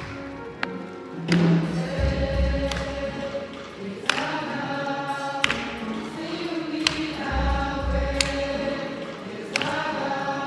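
A choir singing gospel music, with sharp percussive hits about every second and a half and a low thudding beat in two stretches.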